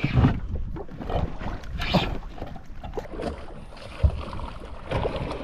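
Wind rumbling on the microphone of a camera worn by an angler in a small boat, with scattered knocks and rattles from handling the spinning rod and reel; the sharpest knock comes about four seconds in.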